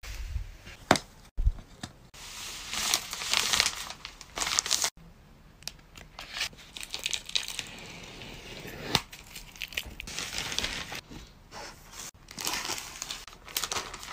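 Plastic packaging bags, a clear sleeve and a black poly mailer, crinkling and rustling in uneven bursts as they are handled and folded, with a few sharp clicks.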